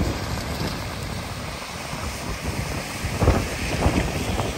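Wind buffeting the microphone over the hiss of cars driving on a wet road, with stronger gusts about three and four seconds in.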